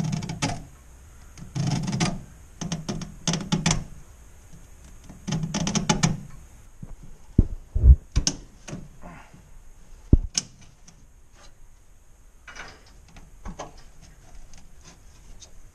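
A knife scoring the outer covering of a fuel hose: a run of short rough scraping strokes, then a few sharp knocks and fainter scraping near the end.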